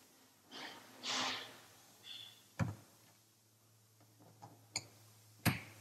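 Click-type torque wrench snapping over with sharp single clicks as the flowmeter's cover bolts reach their set torque: one about two and a half seconds in and two more close together near the end. Each click signals that a bolt has reached the set torque.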